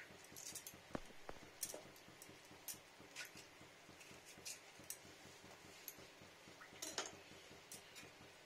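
Faint, irregular pops and ticks of a thick mustard-and-poppy-seed fish curry simmering in a frying pan, bubbles bursting through the paste.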